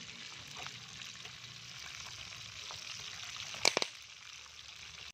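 Catfish deep-frying in a wok of hot oil: a steady sizzling hiss, with a quick cluster of loud pops about three and a half seconds in.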